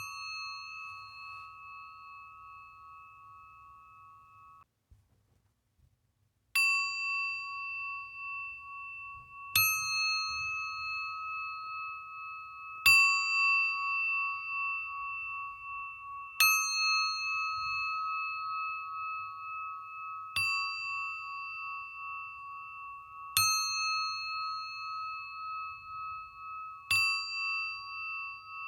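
Singing bowl struck repeatedly, a new strike every three to four seconds, each one ringing on in a long, gently pulsing tone that overlaps the next. Near the start the ringing cuts off abruptly, leaving about two seconds of silence before the strikes resume.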